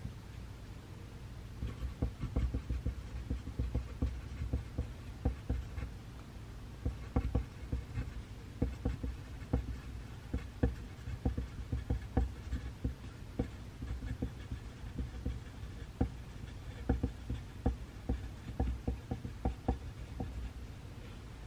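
Pencil writing on paper: irregular short strokes and taps, starting about a second and a half in, over a steady low room hum.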